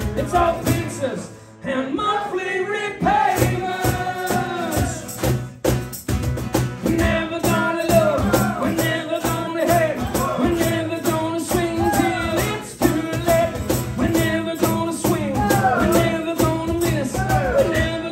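Live acoustic rock band playing: strummed acoustic guitars with singing over them, the playing thinning out briefly about a second and a half in and again near six seconds.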